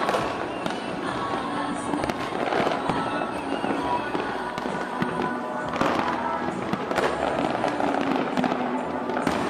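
Fireworks going off in a dense, irregular run of bangs and crackles, with music playing along with them.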